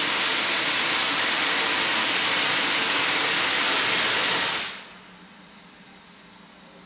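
Standing steam locomotive blowing off steam with a loud steady hiss, typical of the safety valves lifting, which cuts off sharply about four and a half seconds in.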